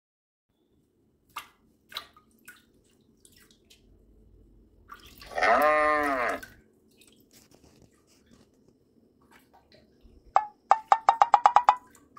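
Water poured from a small steel cup into a metal bowl, a pitched splashing that rises and falls for about a second and a half, about halfway through. A few light clicks come before it, and a quick run of sharp clicks, about eight a second, comes near the end.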